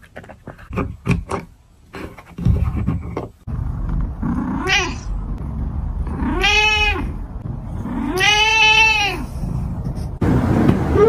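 A cat licking and chewing a catnip toy, a run of quick wet clicks, then a cat purring steadily and meowing three times, a short meow followed by two longer ones that rise and fall in pitch.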